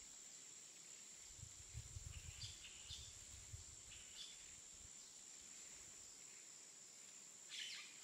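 Faint outdoor ambience: a steady high-pitched insect drone with a few short bird chirps about two and a half and four seconds in, and a cluster of chirps near the end. A low rumble sits underneath from about one and a half to five seconds in.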